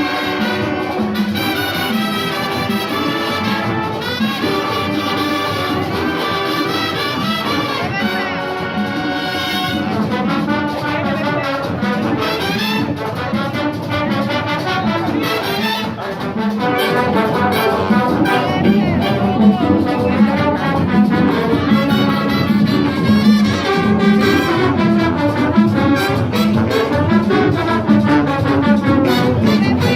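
A Latin big band playing, with trumpets and trombones carrying the music. The band gets louder a little past halfway through.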